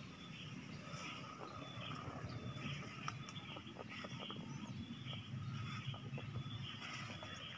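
Rustling leaves and small scattered clicks of people moving through leafy undergrowth, over faint outdoor ambience with birds calling.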